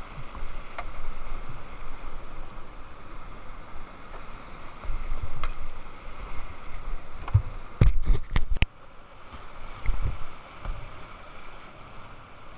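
Whitewater river rushing, with low thumps on the microphone and a quick cluster of sharp knocks a little past the middle.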